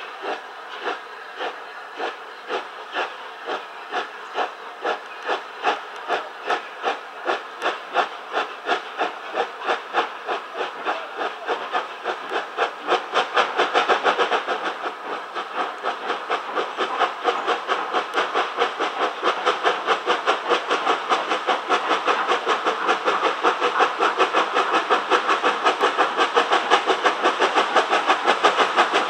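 Steam locomotive 34059, a rebuilt Bulleid Battle of Britain class three-cylinder Pacific, pulling away with a train: its exhaust chuffs in an even beat that quickens and grows louder, over a hiss of steam from the open cylinder drain cocks.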